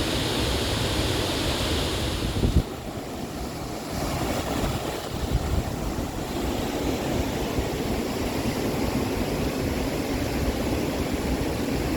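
Rain-swollen mountain creek rushing, an even wash of water noise, with a brief thump about two and a half seconds in.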